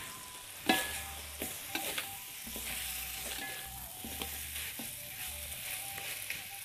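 Chilli spice paste and crushed jengkol sizzling in an aluminium wok while a metal spatula stirs and scrapes them. Scattered knocks of the spatula against the pan come through, the sharpest a little under a second in.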